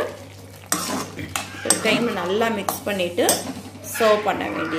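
A metal spatula stirring thick vegetable kurma in a metal kadai, scraping and clinking against the pan's sides and bottom.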